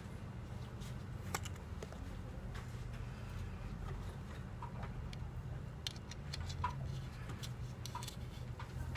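Scattered light clicks and taps of a clip-on wide-angle/macro phone lens being handled, its lens pieces turned and separated, over a steady low hum.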